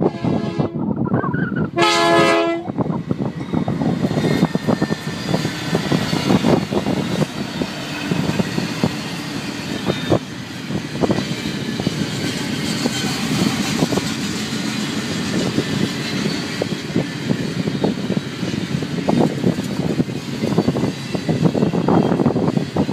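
BNSF freight train's lead diesel locomotive sounds two short horn blasts in the first few seconds, the second louder. Then the locomotives and a long double-stack container train roll past with a steady rumble and wheels clicking over the rail joints.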